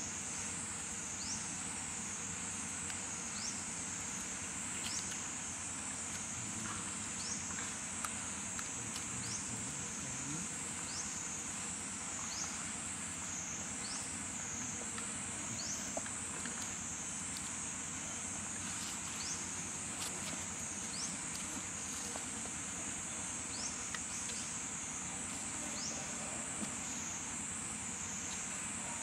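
Forest insects buzzing in a steady high drone that swells and dips slowly, with a short rising chirp repeating about once a second.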